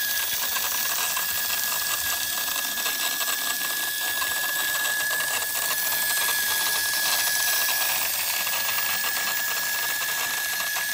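Small battery motor and plastic gears of a Tomy tumble-train toy locomotive running weakly, a steady high whine over a fine rapid clatter. The owner takes the sound for a gear that is out of place or has come loose, the motor perhaps burned out.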